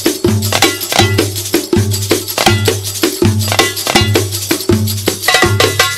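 Background music with a steady, quick beat: percussion strokes over repeating low bass notes.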